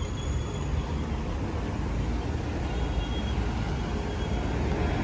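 City street traffic at a busy intersection: cars, buses and scooters passing, a steady low rumble.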